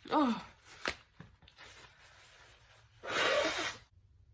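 The end of a human sneeze: a short voiced cry falling in pitch, then a sharp click. About three seconds in comes a breathy, noisy rush of air lasting under a second.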